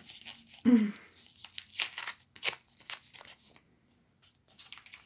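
A small paper packet is torn open by hand, making a run of sharp paper crinkles and crackles. A brief voiced murmur comes a little under a second in.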